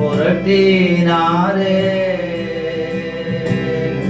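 A Tamil Christian worship song: a voice sings a drawn-out line over steady instrumental accompaniment.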